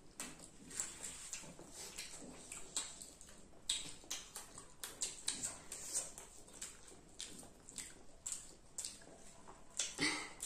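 Close-up eating sounds: children chewing and smacking their lips on juicy, syrup-dipped pineapple pieces and fries, with many short wet clicks and a louder smack near the end.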